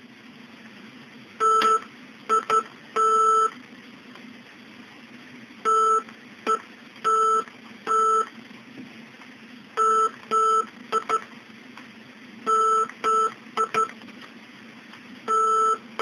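Morse code keyed by hand on a Morse key, heard as a steady beep tone from a signal generator played through a small bare loudspeaker. It comes as short and long beeps in groups, with pauses between the groups.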